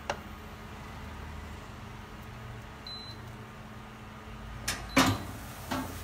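Steady hum of a portable induction cooktop with a short high beep about three seconds in, then a few sharp clatters of a pan and utensils being set down on the stone counter about five seconds in.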